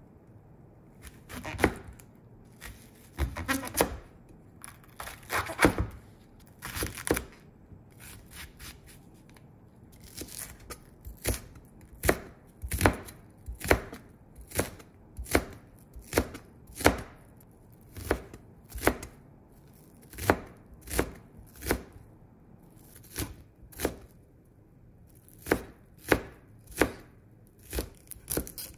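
Japanese nakiri knife cutting a long green onion (negi) on a cutting board: a few drawn-out slicing strokes at first, then crisp chops against the board about one a second.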